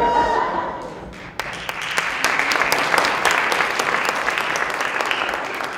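Audience applauding at the end of an improv scene, the clapping from many hands coming in fully about a second and a half in and holding steady.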